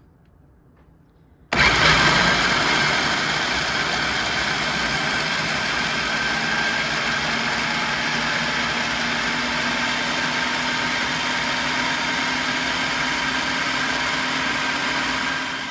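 Electric blender switched on about a second and a half in and running steadily, blending a liquid green sauce of cilantro, onion, garlic, lime juice and chicken broth; it winds down at the very end.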